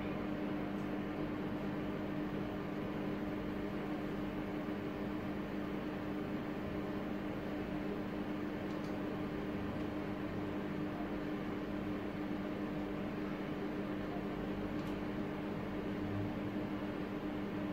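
A steady, even hum and hiss with a low, unchanging drone, of the kind a running fan or motor makes.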